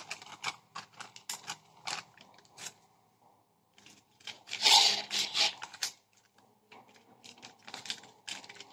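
Metallised foil pouch crinkling and rustling under the hands as it is handled and pressed, with scattered light clicks and crackles and a louder crinkle about five seconds in.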